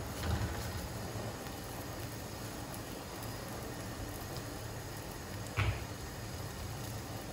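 Steady kitchen hiss with a low hum, broken by a soft knock near the start and a sharper clack about five and a half seconds in, as utensils or dough are handled during paratha making.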